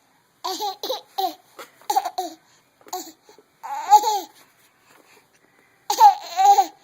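A baby making a string of short, voiced fake coughs with a laugh-like quality, about seven bursts, the longest and loudest about four and six seconds in.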